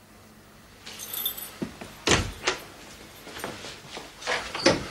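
A bunch of keys jingles, then a door is shut with two solid knocks and locked with a key, followed by a few lighter clicks.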